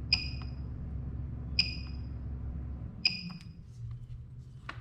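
PCB spot welder firing three times, about a second and a half apart: each pulse is a sharp snap with a short ringing beep. It is welding thick 0.15 mm nickel strip onto a battery, which is struggling to take. A low hum runs under the first two and stops about three seconds in.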